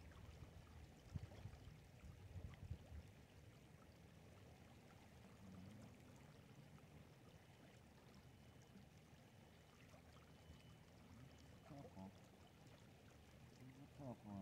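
Faint water sloshing and splashing as a plastic gold pan is dipped and swirled in shallow river water to wash down tailings, with a few short splashes in the first few seconds.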